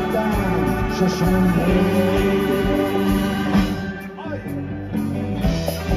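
Live rock band playing through the PA, with a voice singing over guitars, keyboards and drums. The band drops back briefly about four seconds in.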